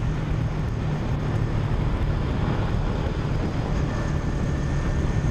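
Yamaha Sniper 150 single-cylinder motorcycle engine running steadily at cruising speed, mixed with wind rushing over the microphone.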